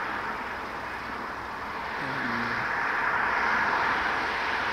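Road traffic noise: a vehicle going by, its tyre and engine noise slowly building, with a short low tone about two seconds in.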